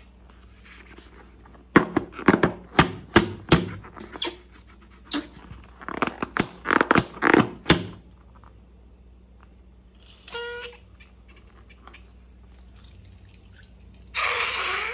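Slime being squeezed and worked by hand: two runs of sharp sticky clicks and pops, then a short squeak, and a brief wet squelch near the end.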